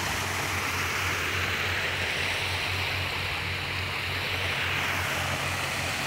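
Small rock-garden waterfall cascading over stones into a pond, a steady rushing splash, with a steady low hum underneath.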